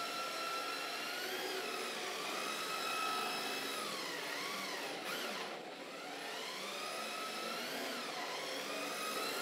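Yokomo YD-2Z RC drift car's electric motor whining, its pitch rising and falling with the throttle, over tyres scrubbing across a polished concrete floor as the car drifts. The whine drops away about five and a half seconds in, then builds again.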